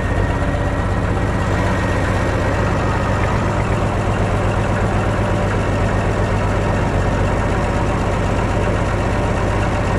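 Massey Ferguson 95X tractor's diesel engine running steadily, a low even drone with no change in speed.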